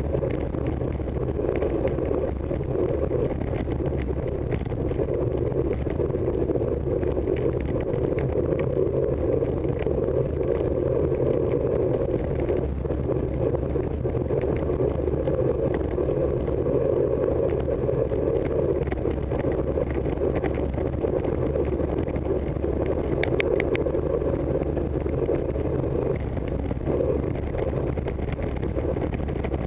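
Steady wind rushing over a bike-mounted camera's microphone, with road rumble from a racing bicycle rolling fast on asphalt. A brief run of high ticks about three-quarters of the way through.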